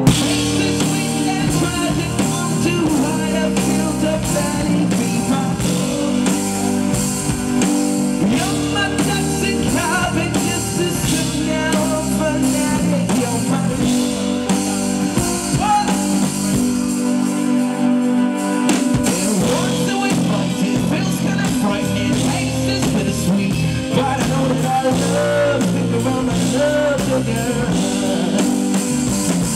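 Live band music with a male vocalist singing into a microphone over drums, bass and guitar. The bass and kick drop out for a moment a little past halfway, then come back in.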